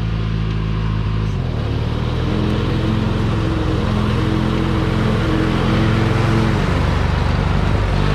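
Riding mower's 16.5 hp twin-cylinder Briggs & Stratton engine running steadily. Its note shifts slightly about a second in and again near the end. It has a new ignition coil and is running really good.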